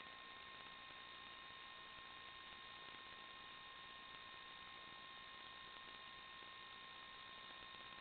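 Near silence: a faint, steady electronic hiss with a few constant high whine tones, the noise floor of the FPV video recording rather than any sound of the aircraft.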